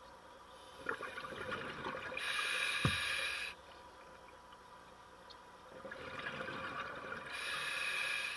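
Diver breathing through an open-circuit scuba regulator underwater: two breaths about five seconds apart, each a burble of bubbles followed by a sharp hiss of air.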